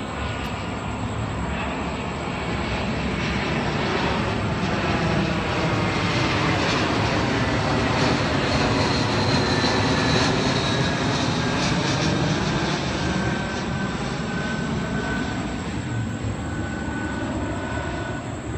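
Airbus A321-231 jetliner passing low overhead on final approach, its twin IAE V2500 turbofans at approach power. The roar builds to its loudest about halfway through and then fades. A thin engine whine drops in pitch as the aircraft moves away.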